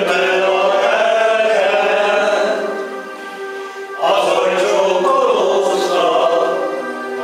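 Several voices singing a song together in long held notes, easing off about three seconds in and coming back strongly with a new phrase at about four seconds.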